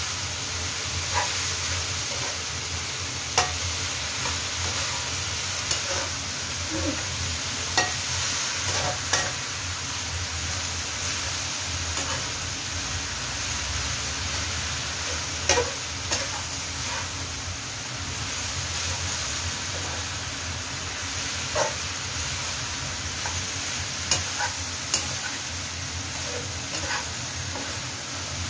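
Chopped cabbage and carrot sizzling as they are stir-fried in a stone-coated wok, with a stainless-steel ladle clinking and scraping against the pan at irregular moments.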